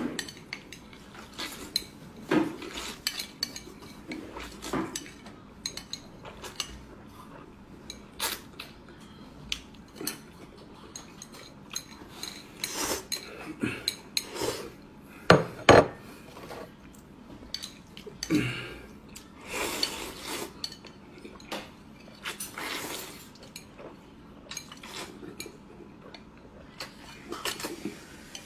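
Chopsticks and ceramic bowls clinking and knocking together as noodles are eaten quickly, in scattered irregular taps. The loudest is a pair of sharp knocks a little past halfway.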